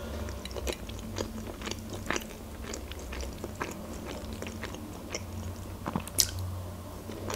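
A woman chewing mouthfuls of layered salad close to the microphone: many small, wet mouth clicks and smacks, with a sharper click about six seconds in.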